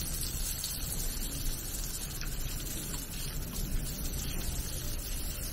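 Water running from a drinking-spring tap in a thin stream, a steady hiss of falling water.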